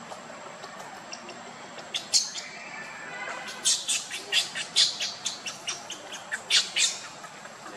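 A run of short, high-pitched chirping calls, many in quick succession, starting about two seconds in.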